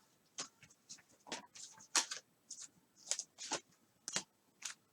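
Trading cards being handled and sorted by hand: faint, scattered light ticks and rustles of card stock sliding and tapping, about one or two a second.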